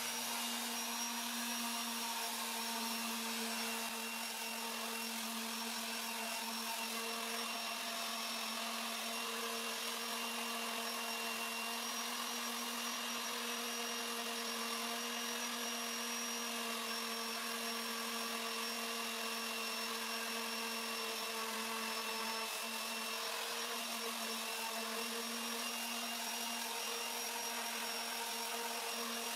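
Bort BES-450 random orbital sander running steadily on walnut wood: an even motor whine over the hiss of 80-grit sandpaper.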